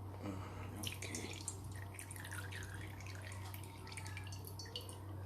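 Cooking oil added to a hot frying pan, crackling and spitting in many small irregular pops, over a steady low hum.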